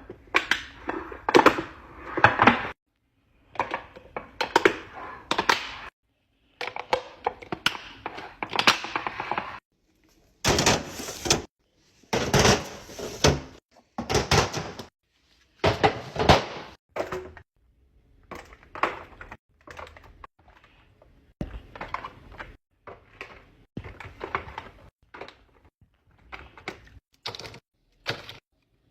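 Restocking sounds: snacks, packages and containers being handled and set into drawers and a mini fridge. They make a run of knocks, clicks, clatter and packaging rustle in short clusters, with brief silences between them.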